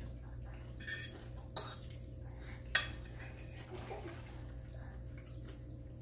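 Metal forks clinking and scraping on dinner plates: a few sharp clinks, the loudest a little before the middle, over a low steady hum.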